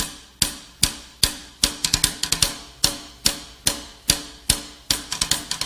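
Music: a percussion-only song intro, sharp drum strikes on a steady beat of about two and a half per second, with quick flurries of extra hits in between.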